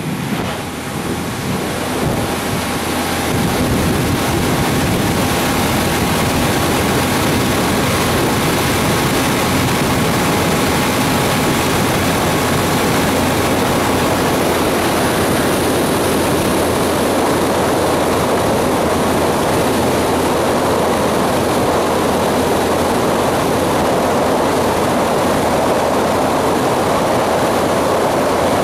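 Steady loud rushing roar of a vehicle under way, wind and engine noise together, building over the first few seconds and then holding even.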